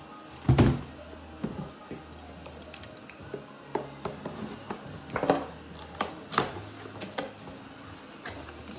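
Packaging being handled: a run of irregular taps, clicks and rustles, with one heavier knock about half a second in.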